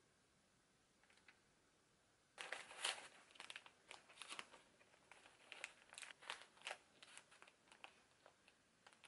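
Kraft wrapping paper crinkling and rustling as hands handle a wrapped parcel, starting about two and a half seconds in as a dense run of irregular crackles that thins out toward the end.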